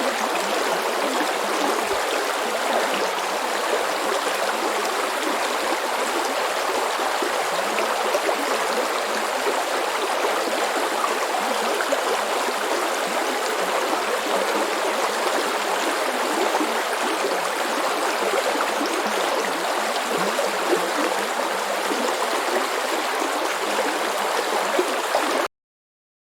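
Small stream flowing steadily over stones, an even rushing and babbling of water that cuts off suddenly near the end.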